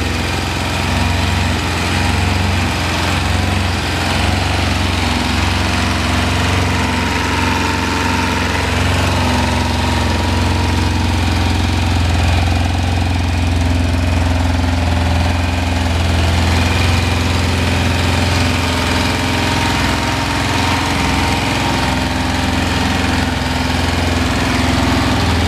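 1987 Kawasaki Concours ZG1000's inline four-cylinder engine idling steadily, with no revving.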